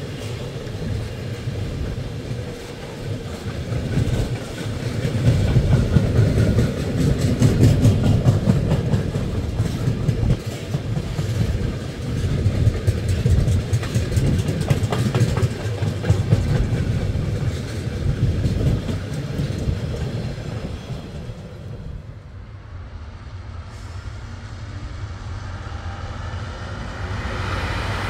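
Freight train of enclosed car-carrier wagons rolling past close by, wheels clattering over the rail joints and swelling in loudness as the wagons go by. About three-quarters through, it gives way to a quieter, steady low rumble of a diesel locomotive across the tracks.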